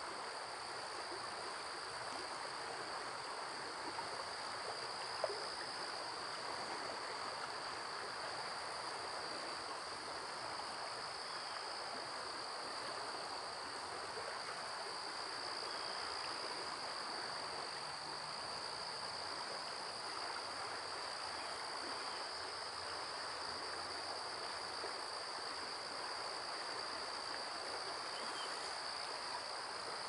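Steady, unbroken high-pitched insect drone over a faint outdoor hiss, with a single sharp click about five seconds in.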